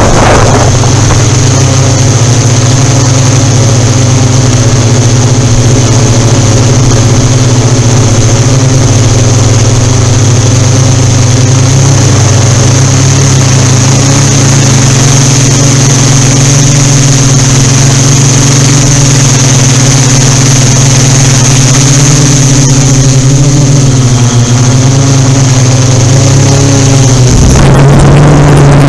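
Yuneec Typhoon Q500 4K quadcopter's motors and propellers hovering, a loud steady hum with a high whine above it, its pitch wavering slightly as the drone works to hold position in wind. The pitch shifts near the end.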